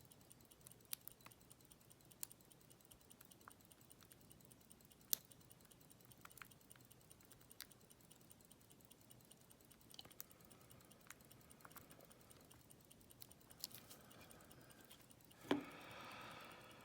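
Faint, scattered small clicks and ticks of a lock pick and tension wrench working the pins of a Master Lock lockout padlock, with one sharper click about five seconds in.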